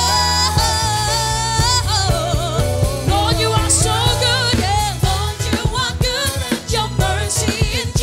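Upbeat gospel praise song: voices singing wavering melody lines over bass and a drum beat that grows busier in the second half.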